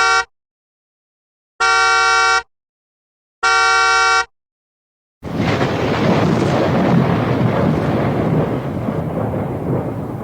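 Three electronic horn-like beeps, each under a second, with clean silence between them. Then a loud rumbling noise starts suddenly about five seconds in and runs on.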